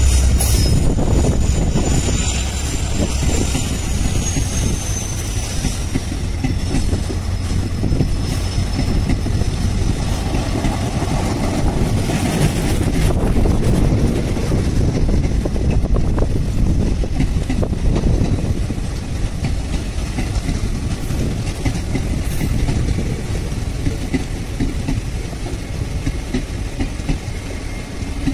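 Indian Railways passenger coaches rolling past: a steady rumble with a continuous clickety-clack of wheels over the rail joints. A thin high squeal slides down in pitch over the first several seconds and fades out.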